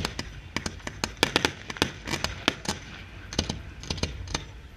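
Professional fireworks display going off: an irregular string of sharp bangs and cracks, several a second, from aerial shells bursting and fans of comets firing.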